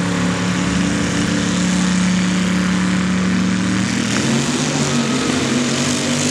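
Engines of two modified 4x4 mud trucks running at the start line, then launching and accelerating away about four seconds in.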